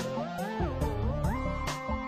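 Electronic background music, its synth notes gliding up and down before settling on a held chord about a second and a half in.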